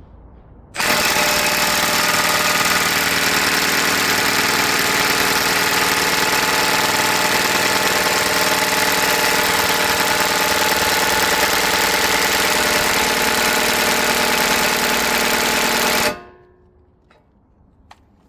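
Power tool running steadily and loudly for about fifteen seconds, then cutting off and winding down, while being used to break loose a tight front hub assembly.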